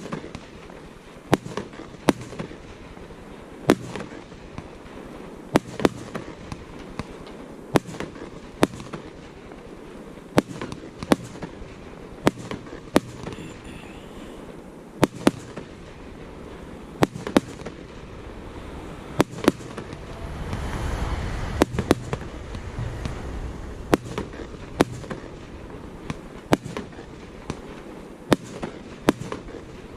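Fireworks display: a string of sharp bangs from bursting shells, spaced irregularly every half second to two seconds, with a stretch of low rumbling noise around twenty seconds in.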